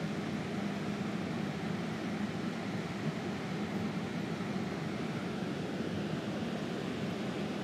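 Steady rushing of a small waterfall pouring into a mountain stream pool.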